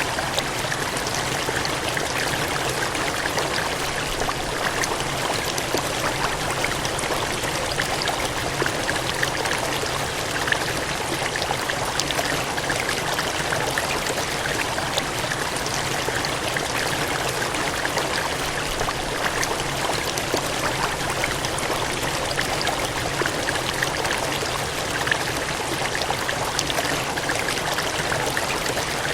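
Gushing, cascading water: a steady, unbroken rush with faint fine splashing in it.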